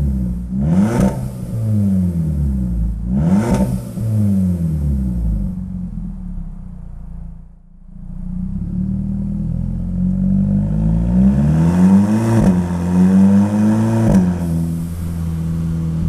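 Mk5 VW GTI's turbocharged 2.0-litre four-cylinder heard through a Manzo cat-back exhaust, its note rising and falling several times with two sharp cracks where it turns, echoing off concrete. After a brief lull about halfway, it pulls up again and then holds a steady note near the end.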